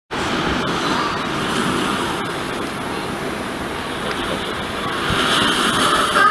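Steady rushing outdoor noise with no distinct tones. It starts abruptly a moment in and swells slightly near the end.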